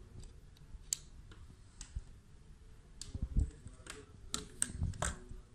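Small alloy-and-plastic toy motorcycle being handled and turned over in the hands on a table: scattered light clicks and knocks, more frequent in the second half.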